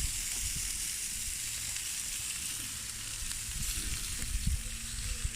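Meat sizzling steadily on a barbecue grill as it finishes cooking.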